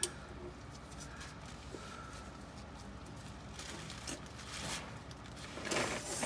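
Faint handling noise of a wrench being worked on a stuck oil drain plug: a few light clicks, then a longer rustling, scraping swell near the end.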